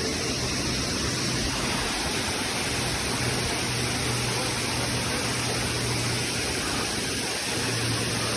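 Waterfall rushing steadily, an even wash of falling-water noise, with a faint low hum that comes and goes underneath.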